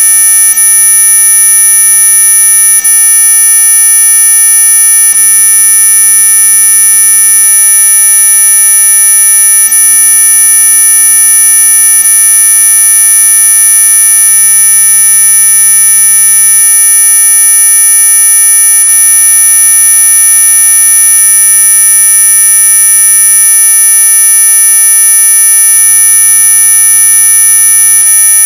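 Synthetic anti-mosquito repellent tone: a loud, steady, high-pitched electronic whine made of several pitches sounding together, like a buzzer or alarm that never changes.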